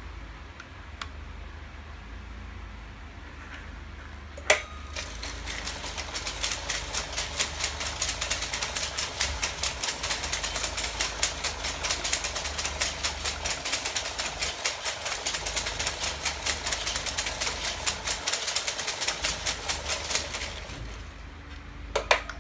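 Playa Crawler's Jansen-linkage walking mechanism running: its electric motors drive the crankshaft through chains, and the rows of steel leg linkages clatter in a fast, even rhythm. The clatter starts after a sharp click about four seconds in, runs for about fifteen seconds, and stops near the end, followed by two more clicks.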